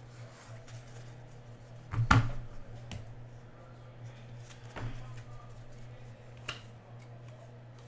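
Trading cards being handled and flipped through, with a few sharp clicks and slaps, the loudest about two seconds in, over a steady low hum.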